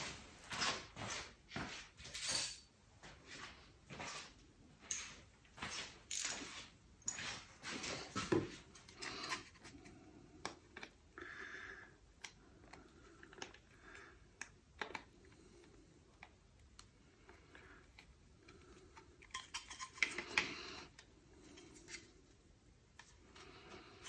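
Small metal tools and parts clicking and clinking while 7 mm nuts are undone from a metal detector's control-knob shafts. Rapid clicks come through the first half, then they thin out, with a brief flurry near the end.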